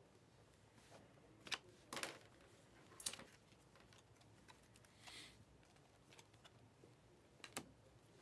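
Near silence broken by a few soft clicks and brief swishes of a stack of trading cards being handled and flipped through by hand, a cluster in the first three seconds and one more near the end.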